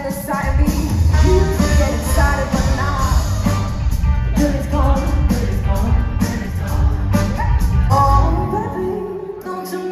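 Live pop performance heard from the crowd: a female singer with a full live band of drums, keyboards and guitar. The deep bass drops out briefly near the end.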